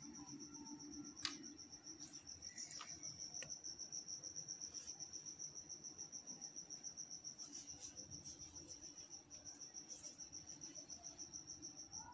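A cricket chirping in a faint, steady, high-pitched pulsing trill, with a low steady hum underneath and a light click about a second in.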